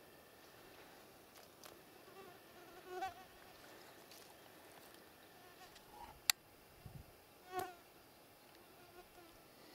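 A flying insect buzzes briefly close past the microphone twice, against faint outdoor background. A single sharp click comes between the two buzzes.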